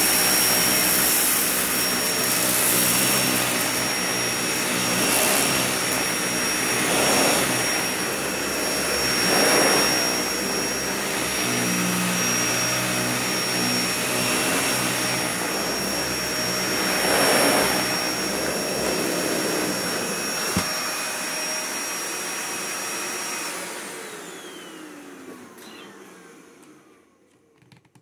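Dyson Ball upright vacuum running on carpet, a steady high whine with louder swells every few seconds. About 23 seconds in it is switched off and the motor winds down with a falling whine, fading out over about four seconds.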